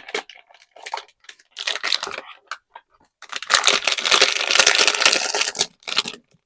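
Blind-box packaging being opened by hand: short rustles of cardboard, then a longer, louder stretch of crinkling and tearing, like a foil wrapper being torn and pulled open, in the middle.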